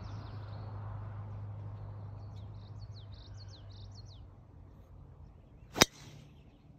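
A golf driver striking a ball off the tee: one sharp crack near the end. Before it, birds chirp faintly over a low hum that fades away.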